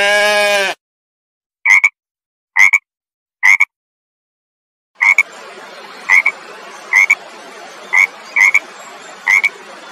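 A single loud bleat at the start, then a frog croaking in short calls: three croaks about a second apart, then after a pause six more croaks over a steady background hiss.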